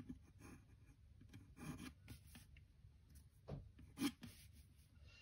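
Faint graphite pencil strokes on paper, ruling short lines along the edge of a plastic set square: several separate scratchy strokes, the loudest two a little past the middle.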